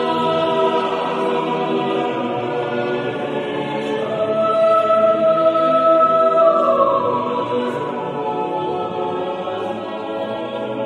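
Choir singing slow music in long held notes.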